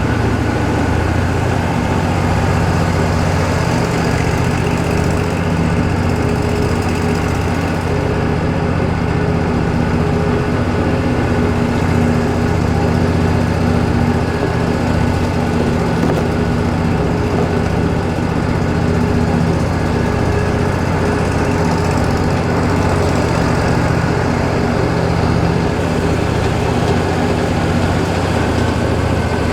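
Wood-Mizer LT40 band sawmill's engine running steadily.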